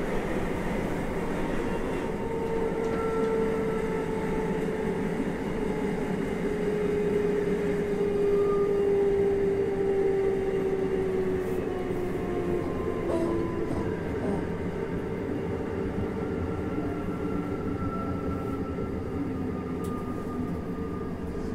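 Interior running sound of a JR Hokkaido 733 series electric multiple unit: a steady rumble of wheels on rail with the traction motor and inverter whine slowly falling in pitch as the train slows on approach to a station stop.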